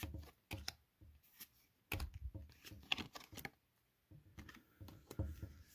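Pokémon trading cards being slid and flicked through in the hand, a run of soft, irregular card clicks and slaps.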